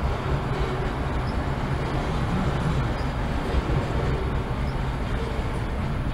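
Freight train tank cars rolling past close by: a steady rumble of steel wheels on the rails.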